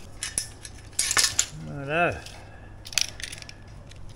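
Metal straightedge and utility knife clinking and clattering on a tiled floor while carpet is cut, in a quick cluster of sharp clicks about a second in and a single click near three seconds. Between them comes a short grunt from a man's voice that rises and falls in pitch.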